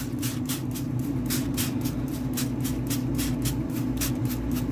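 Hand trigger spray bottle spritzing a pork shoulder laid on aluminium foil: quick hissing squirts, about three or four a second, over a steady low hum.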